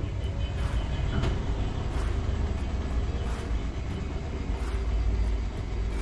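Whirlpool top-load washing machine running with the lid closed: a steady low rumble with faint, scattered ticks.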